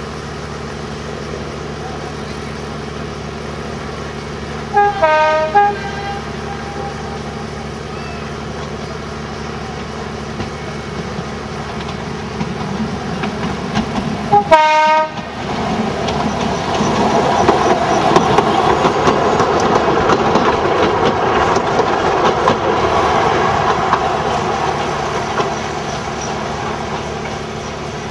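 Billard diesel railcar sounding its horn twice in short blasts, about five seconds in and again about halfway, then its engine and wheels running louder as it comes close, easing off near the end.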